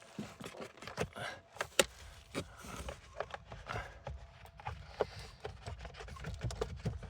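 A pleated cabin air filter being bent and pushed up into its plastic housing, with scraping and rubbing and a string of irregular clicks and knocks as the filter frame catches against the plastic.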